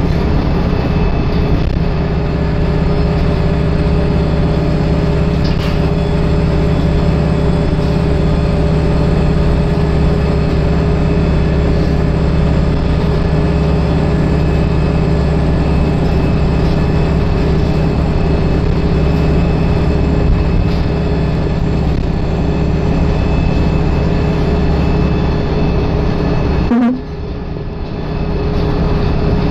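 Wright StreetLite DF Micro-Hybrid single-decker bus's engine and drivetrain running steadily under load, heard from inside the rear of the cabin as a loud, even drone. Near the end the engine note drops suddenly in pitch and loudness, then builds again.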